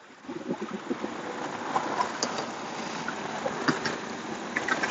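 Footsteps rustling through grass beside loose gravel: a steady rustling hiss with scattered small crunches and clicks, starting shortly after the beginning.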